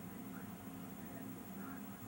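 Quiet room tone: a steady low hum under faint hiss, with no distinct event.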